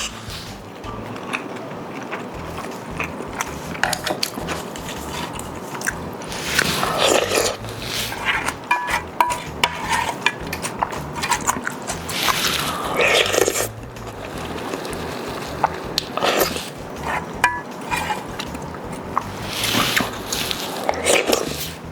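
Close-miked eating sounds of a person chewing and biting into ramen and grilled chicken, with many small wet clicks and a few short clinks. Louder noisy swells come about 7 s, 12 s and 20 s in.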